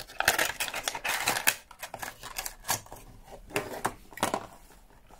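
Clear plastic blister packaging crinkling and clicking as it is handled and a small clip-on LED light is pressed back into it. The rustling is densest in the first second and a half, then breaks into scattered clicks and short rustles.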